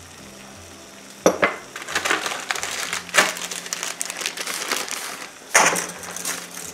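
A dog crunching a piece of dry pasta: sharp, crackly bites starting about a second in, with a few louder cracks. Mixed in is the crinkle of a plastic pasta bag being handled as dry linguine goes into a pot of boiling water.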